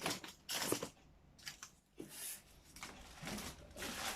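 Packaging being pulled off a new refrigerator, rustling and tearing in several short bursts.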